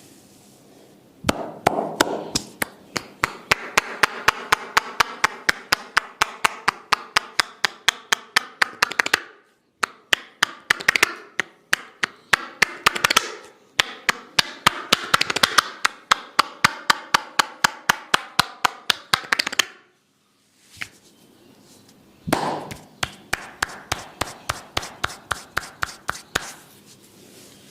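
Rapid hand-percussion massage: hands chopping or cupped-clapping on the head and shoulders, about five sharp slaps a second, in three long runs with short pauses near 9 and 20 seconds in.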